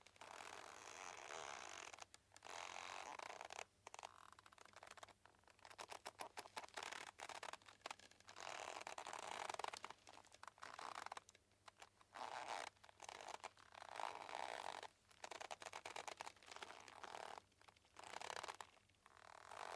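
A boat's rope creaking and straining, in repeated raspy stretches a second or two long with short gaps between them.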